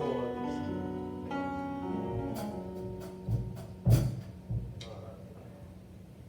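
Church band playing instrumentally: held chords with a few scattered drum hits near the middle, the music dying down toward the end.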